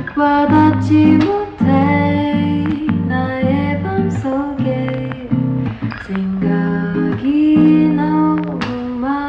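Background music: a lofi hip-hop beat with guitar chords.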